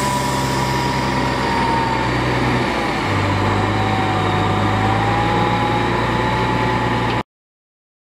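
Diesel engine of a 1989 White/GMC Autocar roll-off truck running at idle, with a thin whining tone over it from the hoist's hydraulic system. The engine note shifts to a slightly different pitch about three seconds in, and the sound cuts off suddenly near the end.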